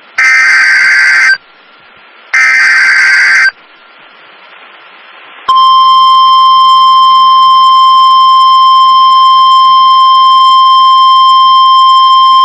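NOAA Weather Radio Emergency Alert System tones. First come two loud, roughly one-second bursts of the screeching digital SAME header, each followed by a short gap. Then, about five and a half seconds in, the steady 1050 Hz weather radio warning tone begins, the attention signal that comes just before a warning message is read.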